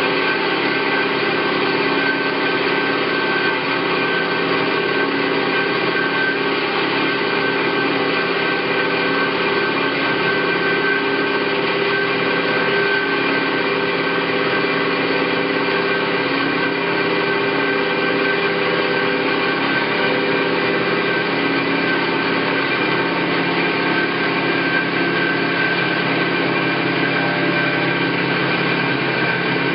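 Hyd-Mech V-18 vertical bandsaw running steadily, its drive giving a constant hum made of several steady tones over a broad whir.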